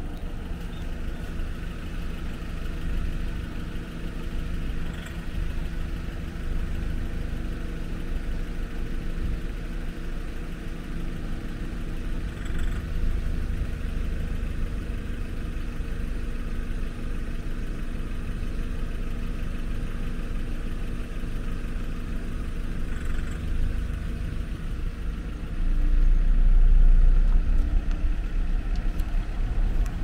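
Car engine idling steadily, heard from inside the car. A louder low rumble swells for about two seconds near the end.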